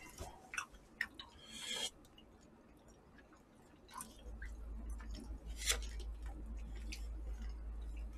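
Faint eating sounds close to the microphone: soft chewing and small clicks. They stop for about two seconds midway, then return faintly over a low hum.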